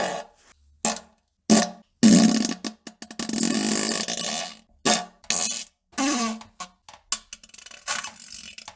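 A string of loud farts: several short blasts with silent gaps between them, and one long drawn-out fart starting about two seconds in and lasting nearly three seconds.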